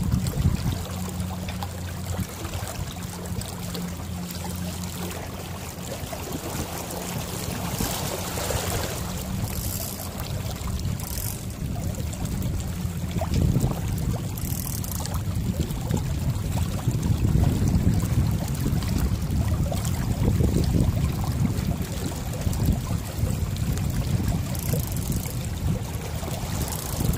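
A small sailboat under way: water washing and wind buffeting the microphone. A steady low hum runs for the first third, and the rumble of wind on the microphone grows stronger from about halfway through.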